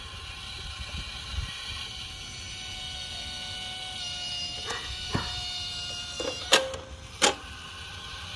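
SKLZ Catapult ball launcher and its plastic balls: sharp plastic knocks, a few faint ones midway and two loud ones less than a second apart near the end, over a steady outdoor background.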